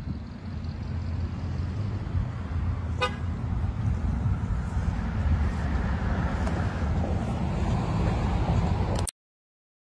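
Street traffic with a low, steady rumble of passing cars, a short car-horn toot about three seconds in, and a vehicle passing louder toward the end before the sound cuts off suddenly.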